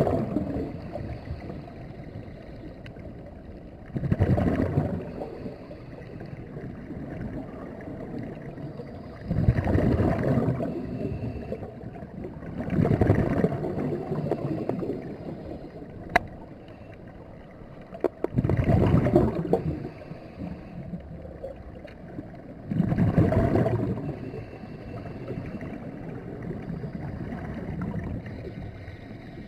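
Scuba diver breathing through a regulator underwater: a low gurgling rush of exhaled bubbles about every four to five seconds, with a quieter steady rush between. A single sharp click about halfway through.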